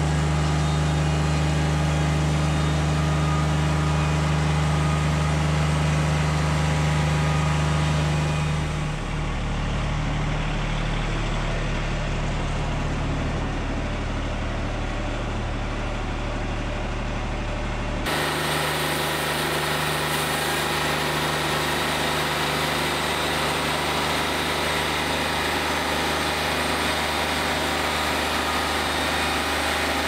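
Wood-Mizer LT40 Wide band sawmill running steadily as its head saws a slab off a Southern Yellow Pine log. Its note changes about eight seconds in. The sound shifts abruptly to a different steady machine note a little past halfway.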